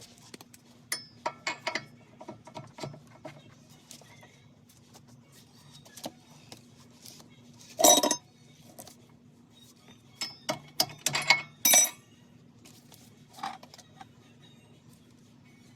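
Metal tools and hardware clinking and knocking on a truck's front axle and drivetrain as bolts are tightened: scattered sharp clinks, with a louder knock about halfway through and a quick cluster of them near the end, over a faint steady hum.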